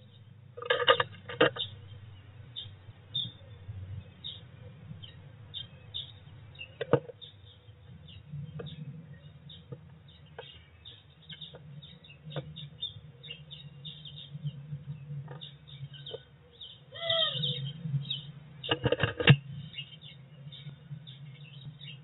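Blue tit moving about inside a wooden nest box: scattered ticks and taps of its claws and bill on the wooden floor and walls, over a low steady hum. A short falling bird call comes about 17 seconds in, and loud flurries of scrabbling come about a second in and again near 19 seconds.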